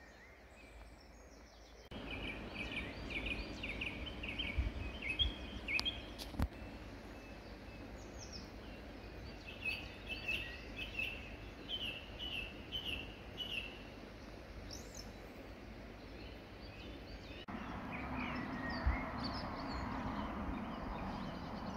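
Songbirds chirping in short repeated phrases over steady outdoor background noise. Near the end a louder rustling noise comes in, from someone walking along a woodland path.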